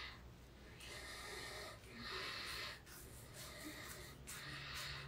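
Razor scraping through shaving cream and stubble on the neck in several short strokes, the louder ones about two seconds apart.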